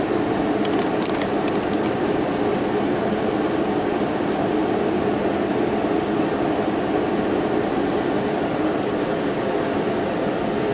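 A steady mechanical hum that holds level throughout, with a few faint crackles in the first two seconds.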